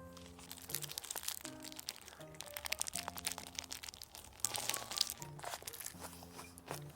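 Crisp crunching and crinkling, many quick sharp clicks, as a paper-wrapped whole-shrimp burger is eaten, over light background music.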